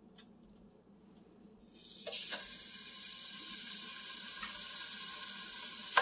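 Kingfish steaks being laid into hot oil in a nonstick frying pan: a sizzle starts suddenly about two seconds in, with a couple of sharp taps as the first piece goes down, and holds as a steady hiss. Another tap comes at the very end as a further piece goes in.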